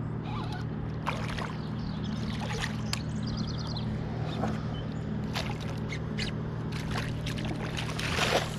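Water splashing and sloshing as a hooked bass thrashes at the surface beside a float tube, with scattered small clicks and a low steady hum. The loudest splash comes near the end as the fish is scooped into a landing net.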